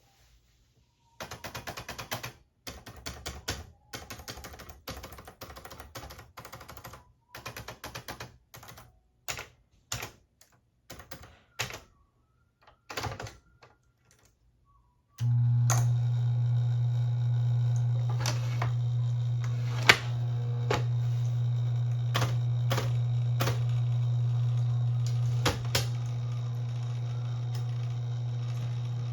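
Smith-Corona Electra 210 electric typewriter: rapid runs of key clacks in bursts with short pauses. About halfway through, its motor starts and runs with a steady low hum while keys keep striking.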